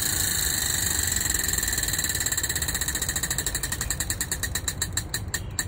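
Prize wheel spinning, its pointer ticking against the pegs: a fast run of clicks that slows into separate, ever wider-spaced ticks until the wheel stops near the end.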